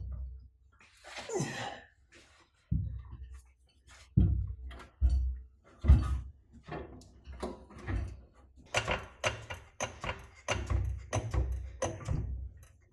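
Repeated knocks and thuds of a BMW E30's fuel tank being worked free where it catches on the body, with a scrape about a second in. The knocks grow faster and denser over the last few seconds.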